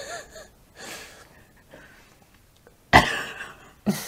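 Men laughing quietly: a short chuckle at the start and a breathy puff about a second in, then two sudden loud, breathy bursts of laughter about three and four seconds in.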